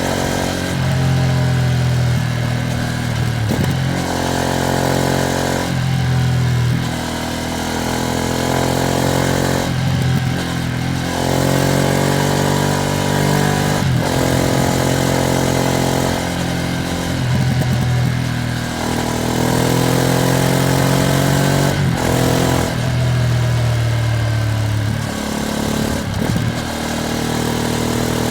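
Ducati Streetfighter V2S V-twin engine under way, its pitch climbing over a couple of seconds and dropping back again and again as the bike accelerates and shifts up through the gears, over a steady hiss of wind and road. The engine is still being run in.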